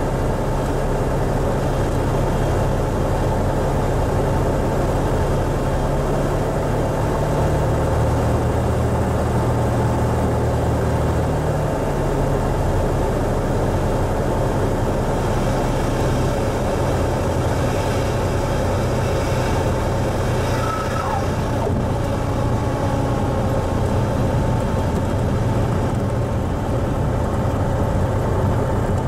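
Cessna 175 Skylark's engine and propeller droning steadily, heard inside the cockpit on a night landing approach. The engine note shifts briefly several seconds in.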